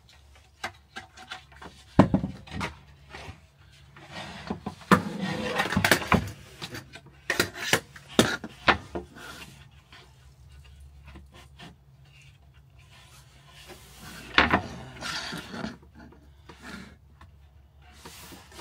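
Wooden boards being handled and worked: scattered knocks and bumps of wood, with a stretch of scraping and rubbing about five to six seconds in. The loudest knocks come about two seconds in and again near fourteen and a half seconds.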